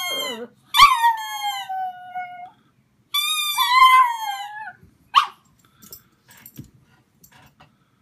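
A pug howling along with a squeezed rubber squeaky toy: long, wavering high cries that slide down in pitch, in two stretches about three seconds apart, overlapping the toy's squeals. A sharp click follows, then a few soft knocks.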